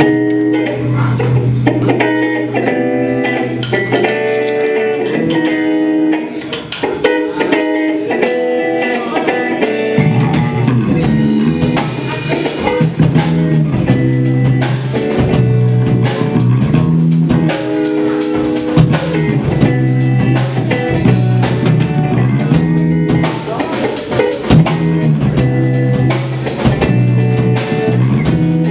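Live rock band playing: a guitar figure alone at first, then drums and a low bass part come in about ten seconds in, and the full band plays on.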